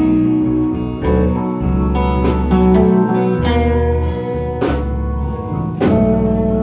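Live band playing a slow instrumental passage between sung lines: guitar notes over held low bass notes, with drum and cymbal strikes.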